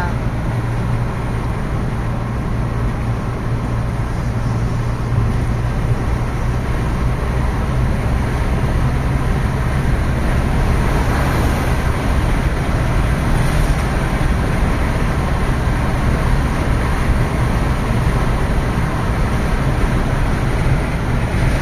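Vehicle engine running steadily while under way, with a constant low hum and rushing road and wind noise.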